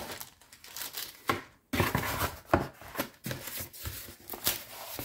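Packaging rustling and crinkling with several light, irregular knocks, as paint bottles are handled and taken out.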